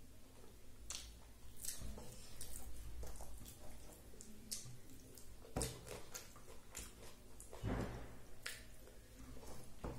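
Close-miked eating sounds: fingers squishing and mixing rice on a plate, and chewing with small wet mouth clicks and smacks, two of them a little louder past the middle.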